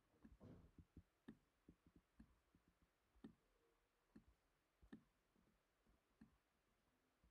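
Near silence with faint, irregular clicks of a computer mouse while lines are drawn on screen.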